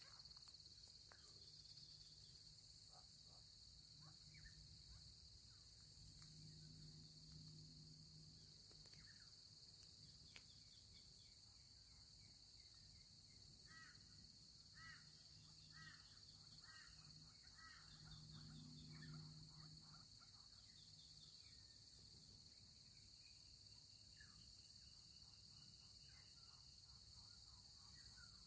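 Faint outdoor garden ambience: a steady high insect drone, with scattered bird calls, including a short run of repeated notes about halfway through, and a low hum that swells twice.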